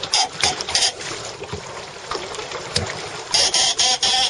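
Water splashing against the hulls of a small sailing trimaran under way: a run of short splashes in the first second, then a denser rush of spray near the end.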